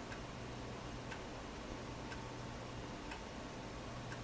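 Faint regular ticks, about one a second, over a low steady hum and hiss.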